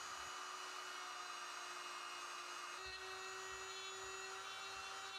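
Dremel rotary tool spinning a small buffing pad against a small metal part, polishing it: a faint, steady high whine that steps up slightly in pitch about three seconds in.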